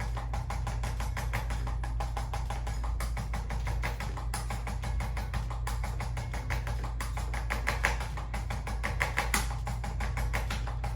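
Arthrostim handheld adjusting instrument tapping rapidly on the back, a fast, even train of clicks, over background music.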